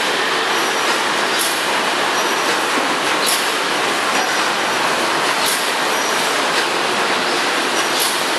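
Automatic detergent packaging machinery running: a loud, steady mechanical din with brief sharp ticks every second or two.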